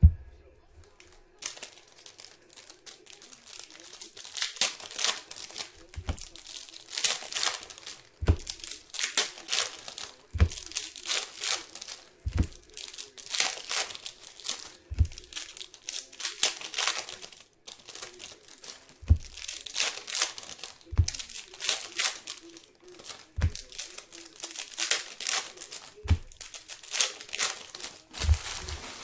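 Plastic trading-card pack wrappers crinkling as packs are handled and torn open, in repeated rustling bursts, with soft low thumps every couple of seconds.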